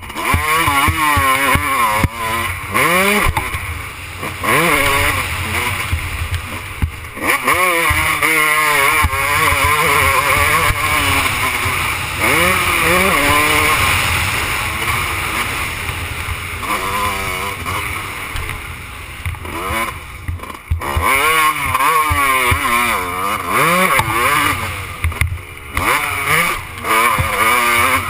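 Motocross bike engine revving hard again and again, its pitch climbing through each gear and dropping at the shifts, with a few short dips where the throttle is shut off. Wind rushes over the helmet-mounted camera.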